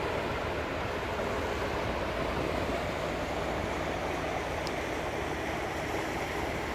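Steady rush of churning water from a departing cargo ship's propeller wash, over a low rumble from the ship.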